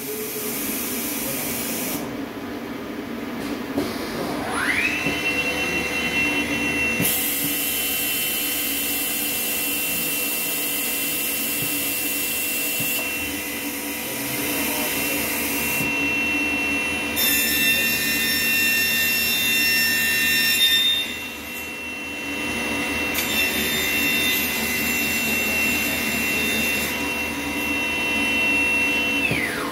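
HOMAG PROFI BMG211 CNC machining centre's router spindle spinning up with a rising whine about five seconds in, running at a steady high whine, and winding down near the end, over a hiss that switches on and off.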